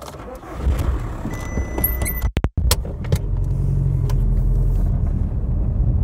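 Volkswagen Golf Mk4 engine starting up, with a few clicks in the first second or two, then running steadily with a low, even hum.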